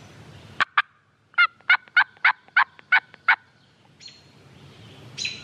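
Hen turkey yelps made on a diaphragm mouth call, hand cupped at the mouth: two short clucks, then a run of eight evenly spaced yelps at about three a second.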